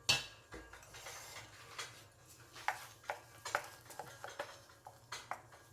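Light, irregular taps and clicks of a kitchen utensil against a baking dish, with one sharper knock at the start.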